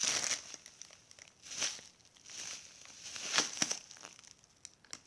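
A foam squishy toy being squeezed and handled, giving several short crinkling, rustling bursts.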